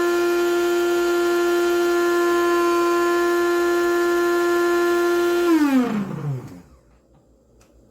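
The coffee maker's built-in grinder motor running with a steady high whine, then spinning down with a falling pitch and stopping about six and a half seconds in.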